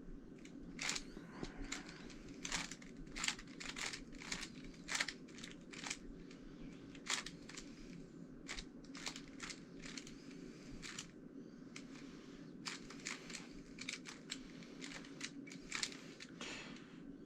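GAN356 X magnetic speed cube being scrambled: its plastic layers are turned one move at a time, giving irregular sharp clicks about one to three a second. A faint steady hum runs underneath.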